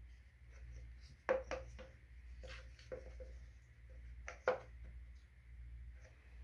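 Light clicks and knocks of a washing machine's plastic water pump being handled and turned into position against its mount, in a few small clusters. A low steady hum runs underneath.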